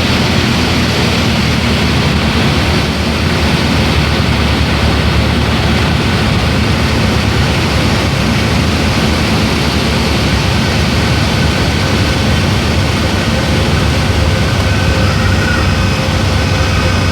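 Cessna 172's piston engine and propeller running steadily under a constant rush of air noise.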